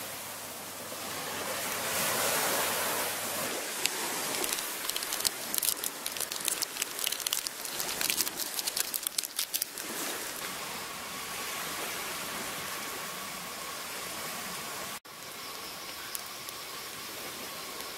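Surf washing on a sandy beach, with a run of sharp crackles through the middle, then a steady high drone of night insects over the background.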